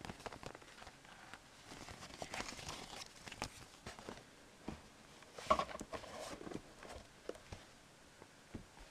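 Paper and cardboard handling: a printed paper sheet rustling, then a cardboard box being touched and moved on a desk, with scattered taps and scrapes, the busiest about halfway through.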